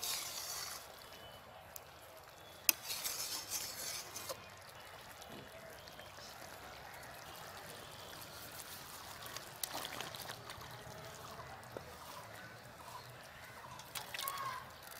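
Metal spatula knocking against a steel karahi and stirring a simmering squash curry, with a sharp knock at the start and another about three seconds in. Near the end the thick curry is scraped and poured from the pan into a steel bowl.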